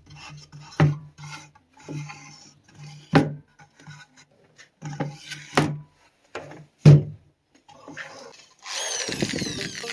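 Wood being handled, rubbed and scraped, with several sharp knocks of pieces set down or tapped into place. Near the end an electric power tool's motor starts up and keeps running.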